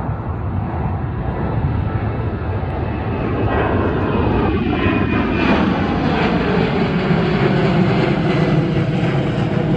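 Jet airliner passing low overhead: a loud engine roar that builds and then holds, with whining tones that fall in pitch as the plane goes by.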